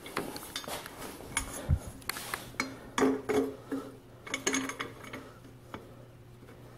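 Scattered light clinks and taps of a dirt bike's metal exhaust pipe being handled, with a low steady hum starting about two seconds in.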